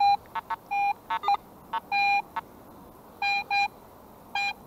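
Metal detector beeping as its coil is swept over a freshly dug hole: a string of short, irregular beeps, mostly on one mid-pitched tone, with a few quicker chirps about a second in, showing that a target still registers in the hole.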